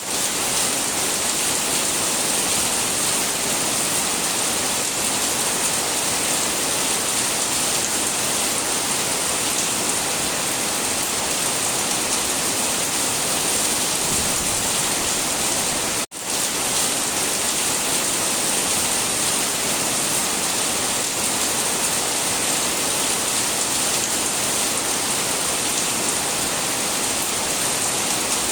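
Steady, even hiss of heavy rain, with no change in intensity. It cuts out for a split second about halfway through, then resumes.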